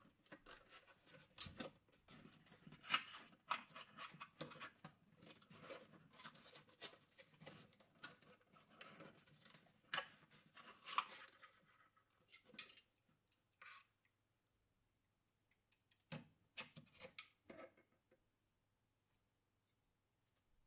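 Faint scraping, rustling and clicking of a cardboard box and the black plastic fan frame of a Noctua NH-U12A cooler being handled as the cooler is worked out of its packaging. The noises come thick and irregular for the first dozen seconds or so, then thin to a few soft clicks.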